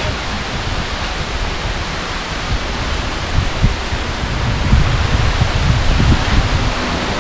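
Steady rushing noise with wind buffeting the microphone in low thumps, heavier in the second half.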